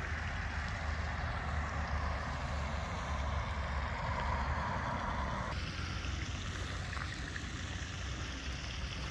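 Steady wind rumble on the microphone with a rushing hiss over it; the hiss changes abruptly a little past halfway.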